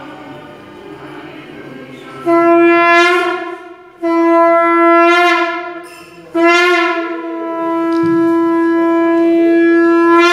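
Conch shell (shankha) blown three times: two blasts of about a second and a half, then one long held blast, each on one steady pitch that lifts slightly as it starts.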